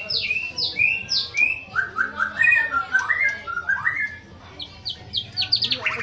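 White-rumped shama singing a varied whistled song. It opens with a run of four repeated downslurred notes, moves to lower rising phrases, and ends with a quick series of high notes.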